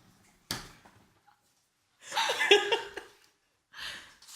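People laughing and exclaiming in short outbursts with gaps between them, the loudest about two seconds in.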